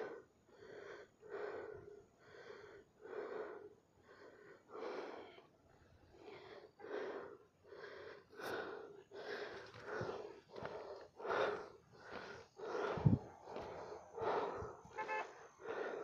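A person breathing hard and rhythmically, about one breath a second, close to the microphone, as from the exertion of walking a hillside path. A single low knock sounds late on.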